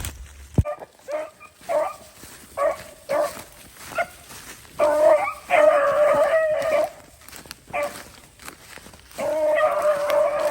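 Beagles baying: a string of short yelps, then long drawn-out bawls, the cry of hounds that have struck a rabbit's scent and are running it.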